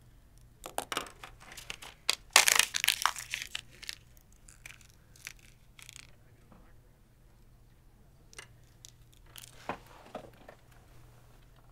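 Paper tearing and crumpling at a desk, most likely a sticky note being torn off its pad and scrunched, in irregular bursts that are loudest about two to four seconds in, with smaller rustles later.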